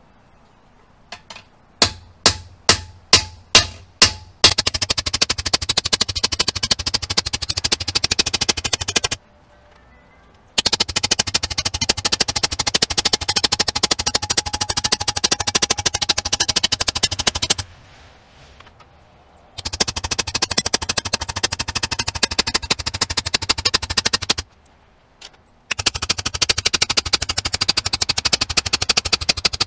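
Hammer striking a scythe peening jig, steel on steel, peening the scythe blade to draw out and thin its cutting edge. A few slow single blows come first, then long runs of fast, even tapping several seconds each, broken by short pauses.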